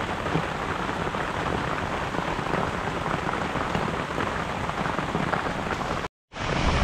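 Rain falling steadily on a surface: a dense, even spatter of small drop ticks, cut off for a moment about six seconds in before it resumes.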